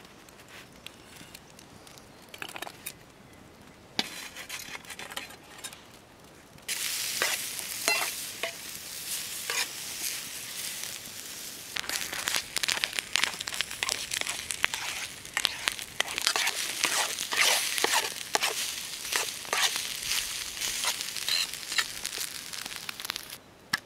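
Mushrooms and beaten egg sizzling in a metal frying pan over a campfire, with a fork scraping and clicking against the pan as the eggs are scrambled. The sizzling starts suddenly about seven seconds in, after a few light clicks of butter being scooped onto the mushrooms.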